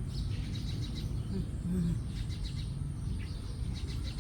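Faint, repeated high chirps of small birds over a steady low rumble.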